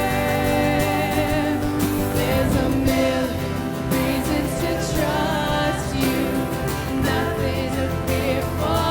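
Live worship band playing a contemporary Christian worship song, with guitar, a steady band backing and sung vocals.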